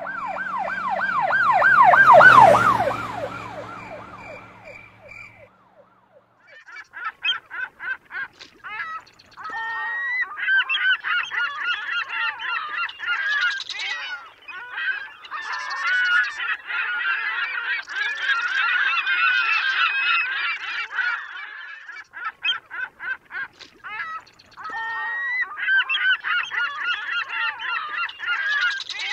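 A wavering, siren-like wailing tone over a low hum swells and fades away in the first few seconds. After a short gap, a flock of geese honks in dense, overlapping calls with brief pauses.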